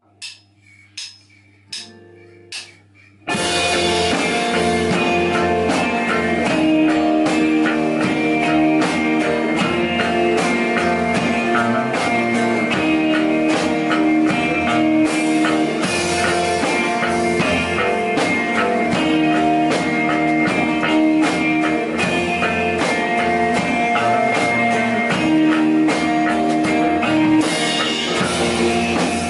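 Instrumental band intro of a rock song: four sharp clicks about three-quarters of a second apart, then about three seconds in the full band comes in with guitar and drum kit playing steadily.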